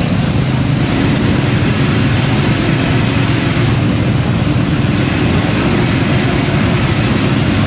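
An engine running steadily: a constant low rumble with an even hiss above it, loud and unchanging.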